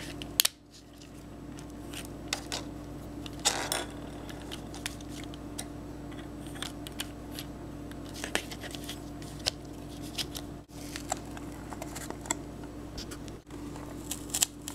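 Small scattered clicks and scrapes of LEGO Technic plastic parts being handled and pushed through holes in a board, over a steady low hum.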